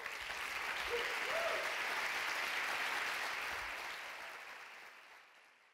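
Audience applauding: clapping that swells quickly, holds, then dies away over the last couple of seconds.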